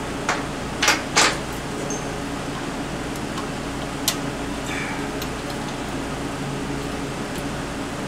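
A few sharp little metal clicks and taps as a small screw is turned into the brake arm of a motorcycle's front drum-brake plate with an Allen key. Three come close together near the start and one more about four seconds in, over a steady low hum.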